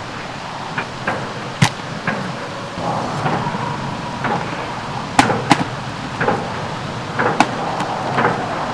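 A few sharp clicks and knocks as a wet-wipe canister is handled and a wipe is pulled out of its top, over a steady outdoor background hiss.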